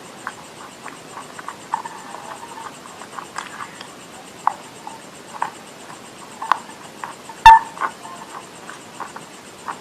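Close-miked chewing of edible clay, with scattered wet mouth clicks and smacks. One sharp crunch comes about three-quarters of the way through.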